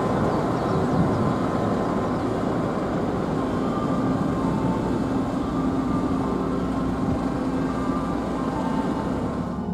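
Steady rumbling noise of a vehicle or ship under way, with faint steady music tones coming in over the second half.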